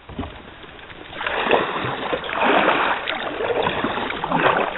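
Kayak paddle strokes in the water: splashing and swishing that swells and fades about once a second, starting about a second in.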